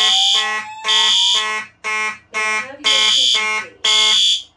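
Fire alarm horns sounding together in an on-off pattern: a Simplex 2901-9838 mechanical horn coded to march time and a System Sensor P2W horn sounding a three-pulse temporal code, with a voice-evacuation slow whoop tone rising slowly underneath. All of it cuts off abruptly about four and a half seconds in, as the alarm is silenced.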